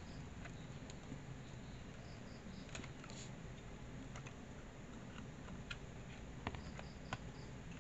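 A few faint clicks and taps of a Netac SSD being pushed into a laptop's hard-drive bay, over low steady room noise. The two clearest clicks come near the end.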